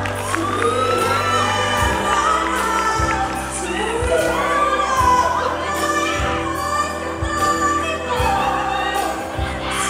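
A woman singing live into a microphone, her voice gliding through long held notes over steady low backing, with a beat about once a second.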